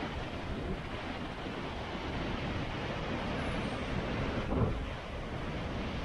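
Heavy ocean surf breaking against rock cliffs and into a sea cave, a steady rumbling wash with a louder surge about four and a half seconds in, mixed with wind buffeting the microphone.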